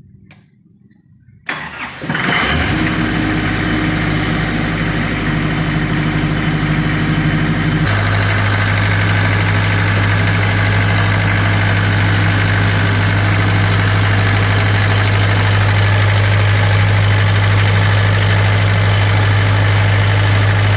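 Denyo 25 kVA diesel generator engine cranking briefly and catching, then running steadily. About six seconds after it catches, the running note changes abruptly and settles into a stronger, steady low hum.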